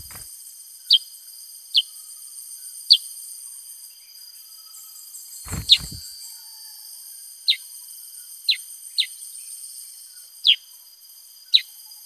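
Black-headed bulbul giving short, sharp calls that drop steeply in pitch, about nine of them spaced irregularly a second or so apart, over a steady high hiss of insects. A thump comes about halfway through, with the loudest call.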